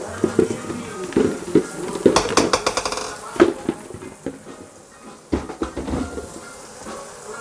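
Kitchenware being handled: dishes and utensils clinking and knocking at irregular moments, with a quick run of clinks about two seconds in.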